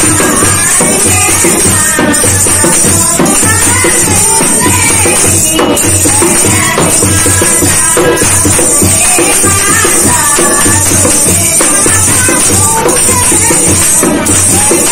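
Women singing a devotional kirtan bhajan to a dholak drum, whose low strokes keep a steady beat, with continuous jingling hand percussion over it.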